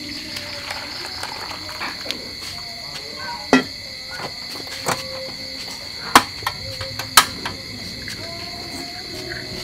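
Crickets chirping steadily, over which come several sharp metal knocks and clinks of a steel pot and ladle against a wok, the loudest about three and a half, six and seven seconds in.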